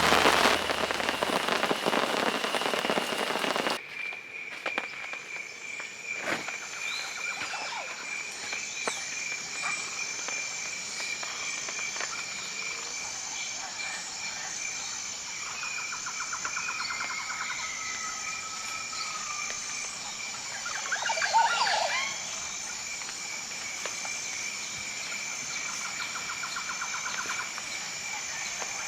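Heavy rain falling for the first few seconds, then cutting out suddenly. Forest ambience follows: a steady high insect drone, short trills, and one louder bird-like call about two-thirds of the way through.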